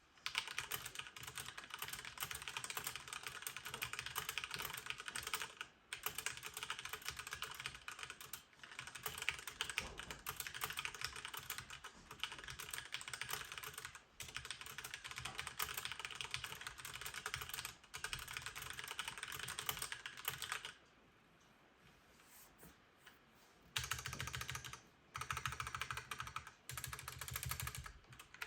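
Stock HyperX Alloy FPS full-size mechanical keyboard with Cherry MX Red linear switches being typed on quickly: dense, continuous clacking of keystrokes, with a pause of about three seconds near the end before the typing starts again. This is the unmodified keyboard, which the owner judges an abomination, especially its stabilizers.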